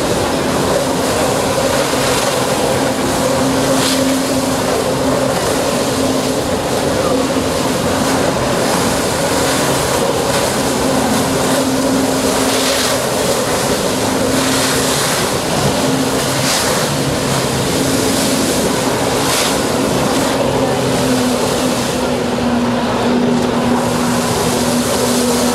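A jet ski's engine running hard and steady, pumping water to a Flyboard. Its pitch wavers slightly, over a rush of water spray that swells briefly several times.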